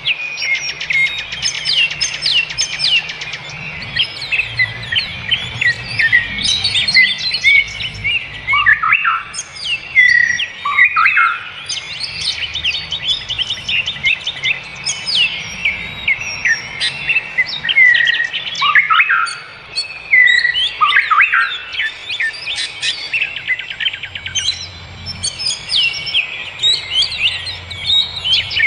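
A chorus of several forest birds singing and calling together, with rapid chirps, trills and quick down-sweeping whistles overlapping throughout.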